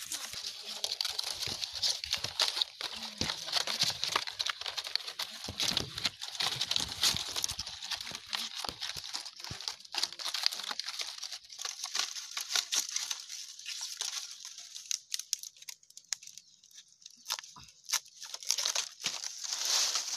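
Green palm-frond leaflets rustling and crackling as they are bent and plaited by hand into a woven sulirap panel. There is a quieter stretch about three-quarters of the way through.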